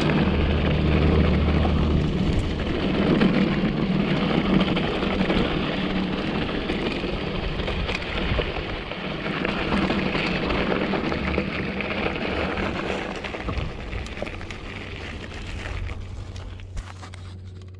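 2014 Giant Trance 3 mountain bike riding a rocky desert trail: tyres crunching on gravel with scattered rattles and clicks from the bike, under steady wind rush on the helmet camera's microphone. It fades near the end.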